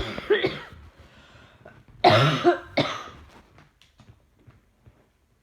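A woman coughing: a harsh chesty cough at the start, then a louder double cough about two seconds in. It is the cough of a chest infection.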